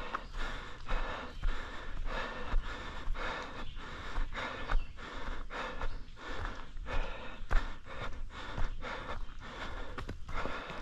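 A runner's heavy, rhythmic panting breaths while running a hilly trail, about two breaths a second.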